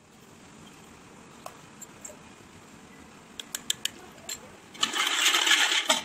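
A spoon clinks a few times against a glass bowl while milk with saffron milk masala is stirred. Near the end a loud, watery rushing swish lasts about a second and stops suddenly.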